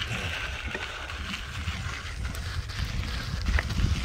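Wind rumbling on the microphone of a moving bicycle, with its tyres rolling over grass-paver blocks and a few light ticks and rattles.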